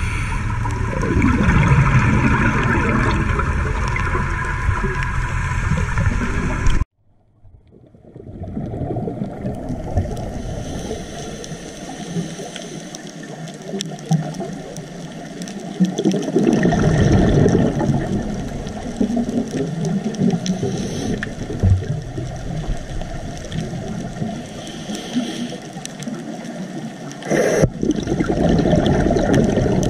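Underwater sound picked up by a dive camera: a scuba diver's exhaled bubbles gurgling past in recurring bursts every several seconds, over steady water noise. The sound drops out briefly about seven seconds in, and there is a single sharp click near the end.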